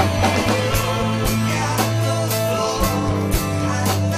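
Rock band playing live: electric guitar, bass and a drum kit keeping a steady beat of about two hits a second.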